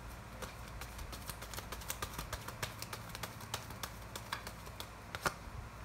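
Tarot cards being shuffled and handled: a run of soft, irregular clicks and snaps, with a sharper snap about five seconds in.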